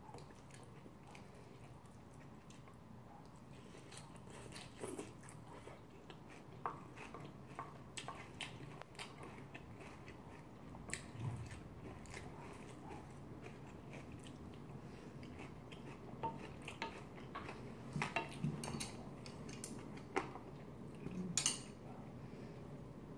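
Spoon clinking and scraping against a ceramic bowl as curry rice is scooped up, with quiet chewing between bites. A louder clatter of utensils comes near the end.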